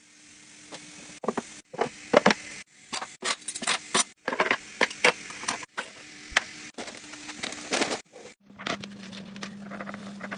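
Kitchen utensils being dropped and set into bamboo drawer organiser trays: a quick run of sharp clacks and clinks of metal and plastic tools against wood. Near the end, a soft pouring of dried herbs into a spice jar over a steady low hum.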